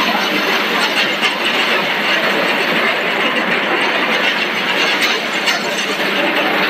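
Machinery of a running core-filled snack extrusion line, with its hopper feeder and twin-screw extruder, giving a steady mechanical noise with occasional light clicks.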